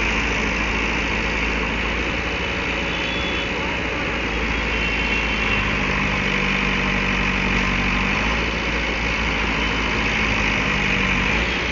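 Diesel engine of a JCB backhoe loader running steadily close by, its loader bucket braced against a tipping, stuck truck. About halfway through, a second steady engine note joins it.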